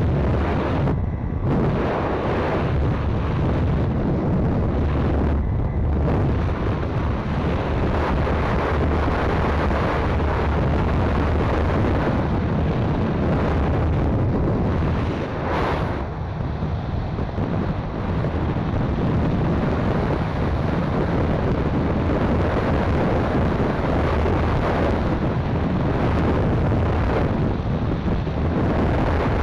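Heavy wind buffeting the microphone of a camera mounted on a moving 50cc motorcycle at road speed, a dense low rumble that eases briefly about halfway through.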